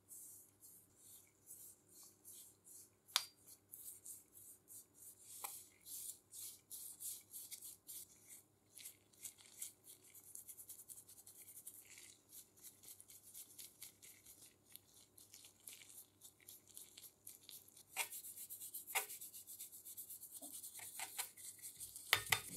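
Paintbrush bristles scrubbing a wet dark coating onto bare steel parts: quick, rhythmic swishing strokes that become faster and denser about ten seconds in. A few light knocks are heard along the way, the loudest near the end.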